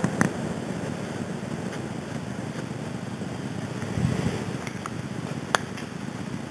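Inflatable bounce-house blower running, a steady rush of air, with a few sharp clicks of handling, the sharpest one near the end.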